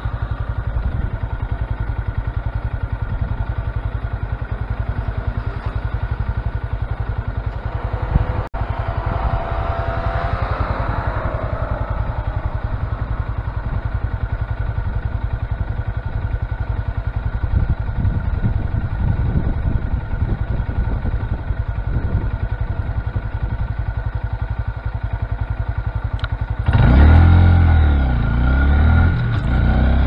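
Honda Grom's small single-cylinder engine running steadily under way. Music starts near the end.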